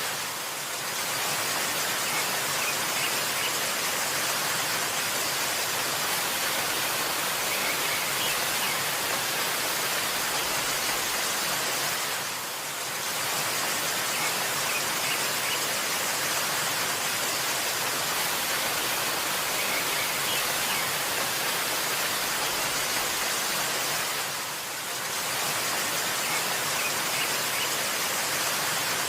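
Steady rushing of a waterfall, with a few faint high bird chirps here and there. The rush dips briefly twice, about twelve seconds apart.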